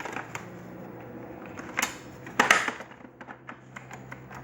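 Plastic casing parts of a Hitachi vacuum cleaner being handled and pressed shut: scattered light clicks, two louder knocks about two seconds in, then small ticks.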